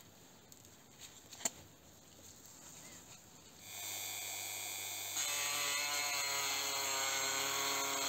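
A few light clicks of rusty knife parts being handled, then a handheld rotary tool with a small ball burr starts about halfway through and runs steadily with a high whine. From about a second later it grows louder and harsher as the burr grinds into a rivet head on the corroded steel knife liner.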